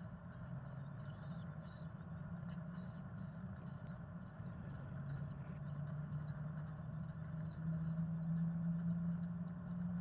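A steady low hum like an engine running, its pitch wandering a little, growing louder about seven and a half seconds in.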